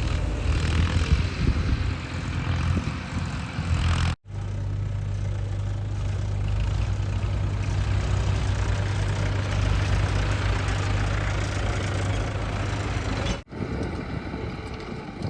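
Heavy diesel engine of earthmoving or farm machinery running steadily. The sound drops out for an instant about four seconds in and again near the end, where the footage is cut.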